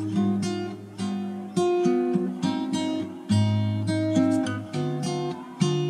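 Background music: acoustic guitar, chords and single notes plucked and strummed in a steady rhythm, each one ringing and fading before the next.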